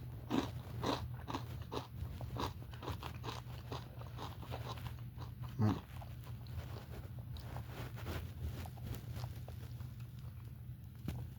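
A person chewing crunchy food close to the microphone: irregular crisp crunches, busier in the first half, with one sharper crunch about halfway through.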